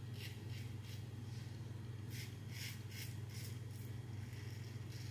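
Mühle R89 safety razor scraping through lather and stubble in short strokes: three in the first second, then a quick run of strokes between about two and four seconds in. A steady low hum sits underneath.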